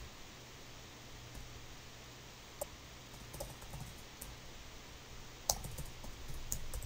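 Faint computer keyboard keystrokes, a few scattered clicks with one sharper click about five and a half seconds in and a quicker run of taps near the end, as a user name and password are typed.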